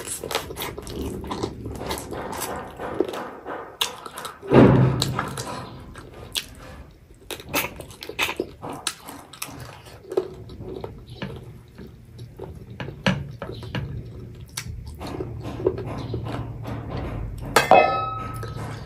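Close-miked eating sounds of chicken and rice eaten by hand: wet chewing and lip smacks as a run of sharp clicks, with a brief low vocal hum about four and a half seconds in. Near the end a glass bowl clinks and rings as gravy is poured from it.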